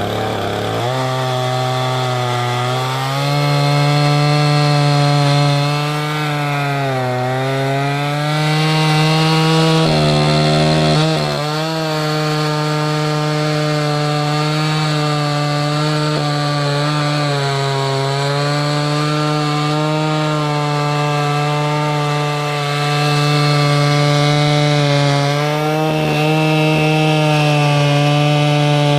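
Stihl MS 661 two-stroke chainsaw on a Logosol F2 mill, running at full throttle while ripping spruce along the log. The engine pitch is steady but sags briefly a few times as the cut loads it, then picks back up.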